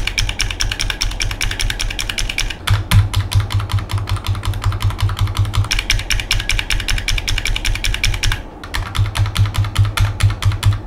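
Razer optical keyboard switches with the keycaps removed, pressed rapidly over and over. The purple clicky switch gives sharp, bright clicks, and the red linear switch a lower, less crisp clacking. The two take turns: clicky first, then linear about three seconds in, clicky again, then linear near the end.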